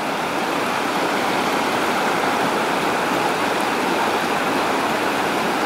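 Shallow, rocky river rushing over stones: a steady rush of water.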